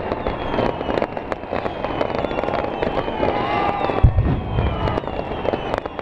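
Fireworks going off in a rapid string of cracks and pops, with whistling tones from the rockets. A heavy boom comes about four seconds in.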